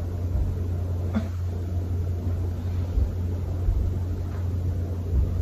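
A steady low hum in the room, with a faint click about a second in.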